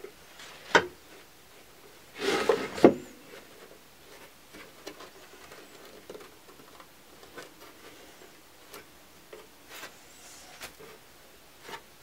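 Bar clamps and timber pieces being handled on a wooden workbench. A sharp click comes under a second in, then a short rattle-and-scrape around two seconds in that ends in a knock. Light scattered taps follow.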